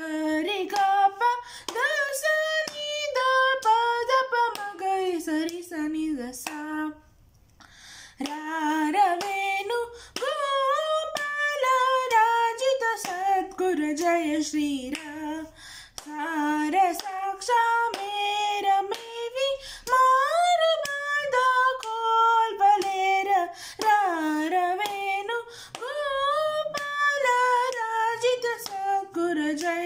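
A girl singing a Carnatic swarajati in Bilahari raga as a solo voice, a melody that glides and bends through ornamented notes. She breaks off briefly about seven seconds in, then sings on.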